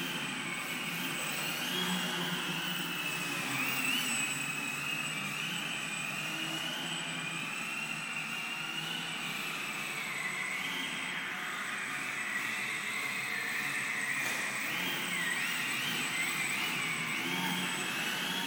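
Electric motor and propeller of a Crack Yak 55 indoor foam model aeroplane: a high whine whose pitch keeps stepping up and down as the throttle is worked in flight.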